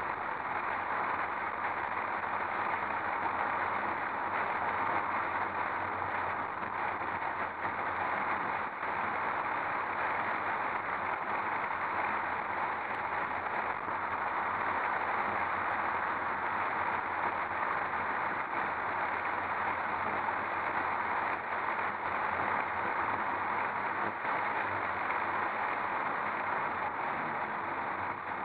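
Steady wind and road noise of a soft-top convertible driving along a damp road, picked up by a microphone mounted outside on the car's body.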